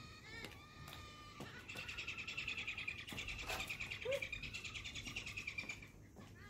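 Galahs (pink-and-grey cockatoos) calling, a few short calls and then one harsh, rasping screech lasting about four seconds that stops near the end.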